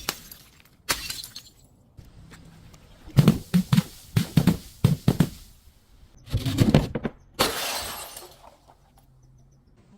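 Glass bottles shattering and crunching: a sharp crack about a second in, a rapid run of cracks in the middle, then louder breaks with a spray of crackling glass near the end.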